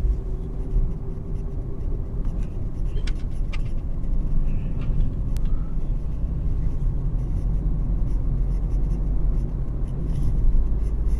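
Car cabin interior while driving slowly: a steady low engine and road rumble, with a few faint clicks a few seconds in.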